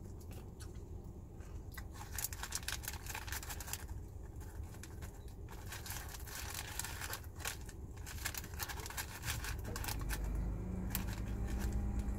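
Close-up eating sounds of crispy fried chicken being chewed and pulled off the bone: rapid small crackles, clicks and tearing throughout. A low steady hum comes in near the end.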